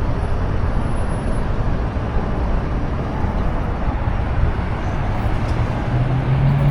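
Steady, dense roar of road traffic passing close by, with the rush of the large waterfall underneath. A passing vehicle's low engine hum comes in about six seconds in.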